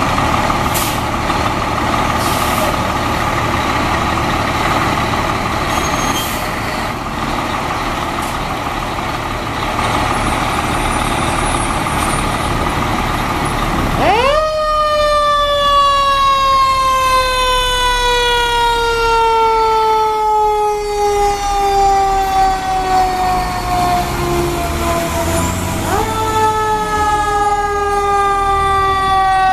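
A heavy fire truck's diesel engine running loudly. About halfway through, a mechanical siren winds up sharply and then slowly coasts down in pitch over many seconds. It is wound up again near the end and starts falling once more.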